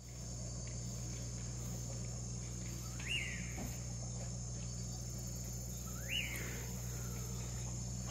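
Steady chorus of night insects such as crickets, over a low steady hum. A whistled call that rises and then falls sounds twice, about three seconds apart.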